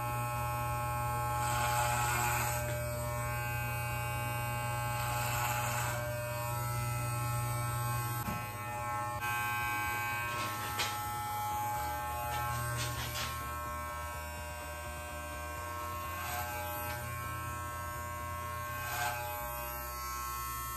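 Corded electric hair clipper running with a steady buzz as it cuts a man's short hair. Its tone shifts about twelve seconds in.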